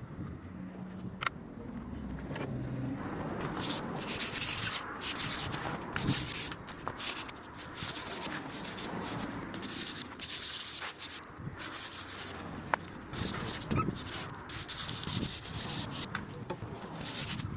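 Hand sanding of the old coffee table's surface, sandpaper rubbed in quick, uneven back-and-forth strokes, steady work that picks up a few seconds in.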